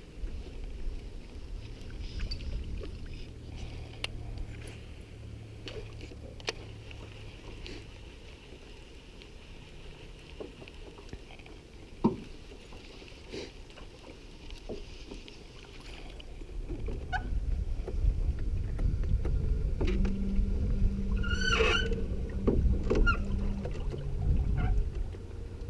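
Outdoor rumble of wind buffeting the microphone, much stronger from about two-thirds of the way through, with scattered small clicks and knocks of handling and a brief high chirp near the end.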